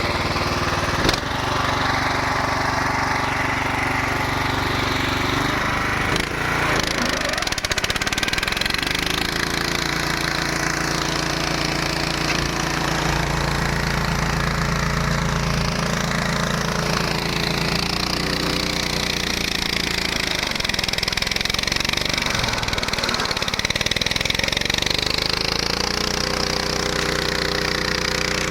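The 15 hp Hyundai engine of a flail mower running steadily, its speed sagging and picking up again twice and rising again near the end. A single sharp knock about a second in.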